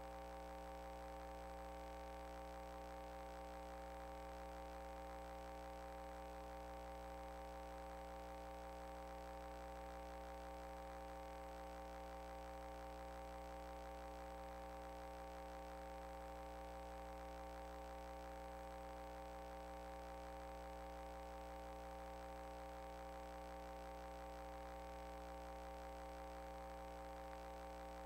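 Steady hum: several constant tones over a low drone, unchanging throughout.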